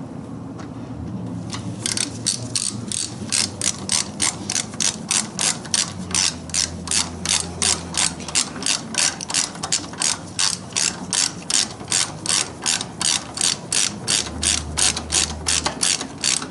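Hand ratchet wrench turning a fastener, its pawl clicking in an even run of about three clicks a second that starts about two seconds in and stops near the end.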